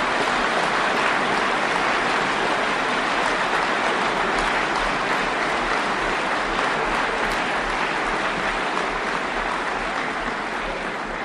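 Audience applauding steadily, dying down near the end.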